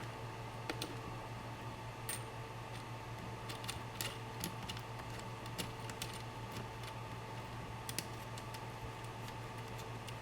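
Scattered light clicks and taps of small items being handled on a workbench, irregularly spaced, over a steady low electrical hum.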